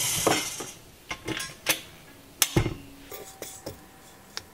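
Clinks and knocks of a stand mixer's wire whisk being detached and tapped against a stainless steel mixing bowl, with a silicone spatula scraping thick royal icing off the whisk. About nine separate knocks, the loudest about two and a half seconds in.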